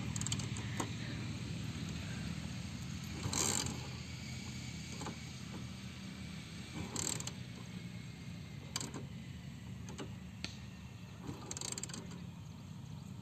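Motorcycle kick-starter kicked over and over, the engine cranking with a short rasp on each kick but not catching: the bike fails to start. The kicks come a few seconds apart over a low steady hum.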